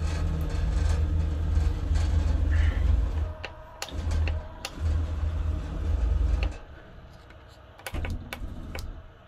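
Stepper motors of a home-built CNC plasma table driving the gantry as it is jogged into position with a handset: a low hum in stop-start runs over the first six and a half seconds and once more briefly near the end, with scattered clicks.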